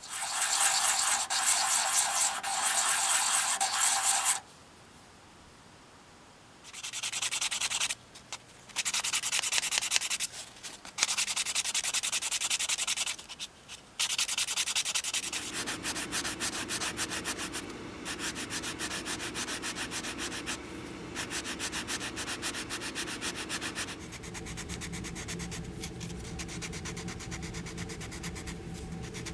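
Old finish being stripped from a small wooden awl handle. Quick scratchy strokes of a pocket-knife blade and sandpaper rub back and forth over the wood, in broken stretches with pauses through the first half, then steady hand sanding for the rest.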